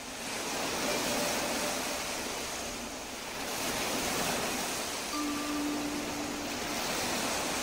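Ocean surf washing in slow swells, rising in the first second. A faint, brief steady tone sounds about five seconds in.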